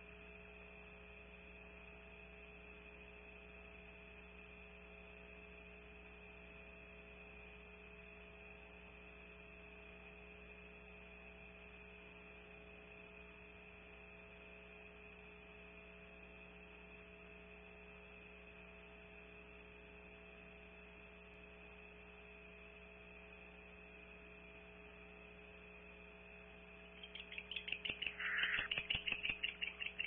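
Steady electrical hum from the nest-cam's audio feed. About 27 seconds in, a rapid run of loud clicks starts, about six a second, with a short call in the middle of it.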